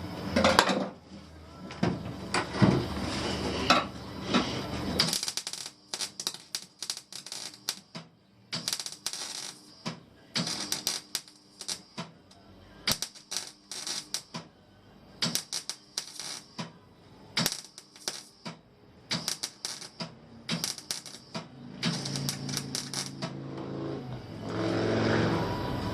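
Many short, sharp metallic clicks and clinks in irregular clusters, after a steadier, denser stretch of sound over the first few seconds.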